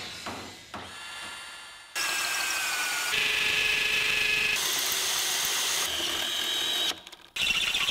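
Short, abruptly cut clips of a DeWalt DCD996 brushless cordless hammer drill running at high speed, drilling into a concrete slab and through sheet metal, its motor whining at a steady pitch. Before the first clip there is about two seconds of a quieter logo sound effect with a couple of clicks.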